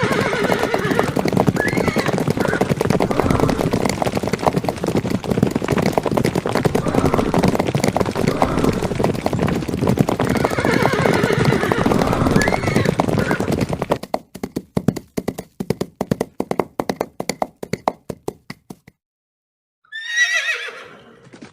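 Medieval battle sound effect: a dense din of men shouting a war cry, horses whinnying and hooves clattering. About 14 s in the din drops away to scattered hoofbeats, then after a second of silence a single horse whinny falls in pitch near the end.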